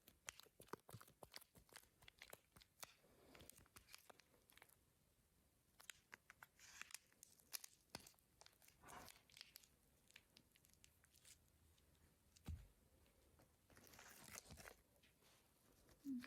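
Faint handling sounds of small toys and packaging: scattered clicks and taps with short crinkling rustles, and a soft thud near the end.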